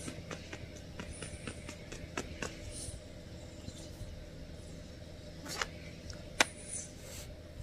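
Soft kissing smacks and small clicks against a dog's fur, irregularly spaced, with a sharper smack about six seconds in, over a low steady hum.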